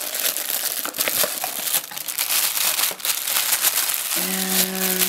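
Thin clear plastic bag crinkling and rustling in the hands, with many quick crackles, as a camera grip is pulled from its box still wrapped in it.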